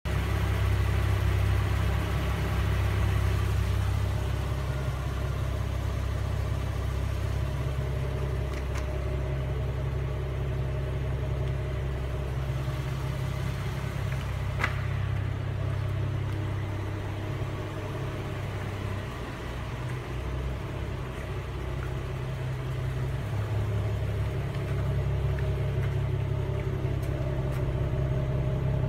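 Car engine idling steadily, a low even hum, with one sharp click about halfway through.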